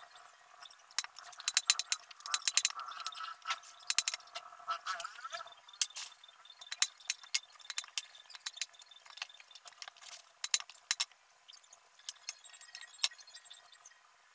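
Taro stalks being handled and dropped in a plastic tub: a run of irregular sharp clicks and taps.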